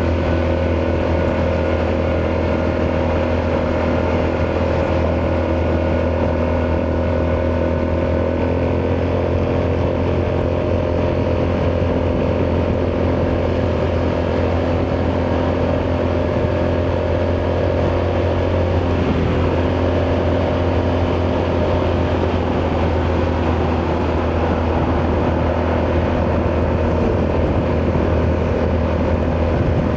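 Italjet Dragster 200 scooter's single-cylinder four-stroke engine running steadily through an Akrapovic exhaust. Its pitch dips slightly about eight seconds in and shifts again a little before twenty seconds.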